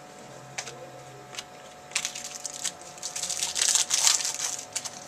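Two small clicks, then from about two seconds in a dense crinkling and crackling of a foil trading-card pack wrapper being torn open and handled.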